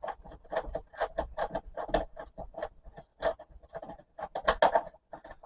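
Quick, irregular clicks, knocks and scrapes of small castor wheels being worked off the base of a vacuum cleaner.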